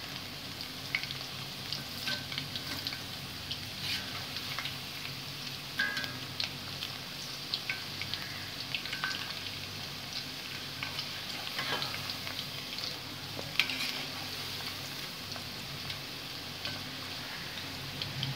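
Batter-coated cauliflower pieces (gobi 65) deep-frying in hot oil in a kadai: a steady bubbling sizzle with scattered crackles. A perforated metal spoon stirs through the oil now and then, with a few sharper clinks and scrapes.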